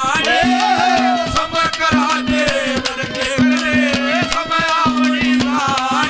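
Live Haryanvi ragni folk music: a harmonium-led melody with wavering held notes over steady, fast hand-drum strokes.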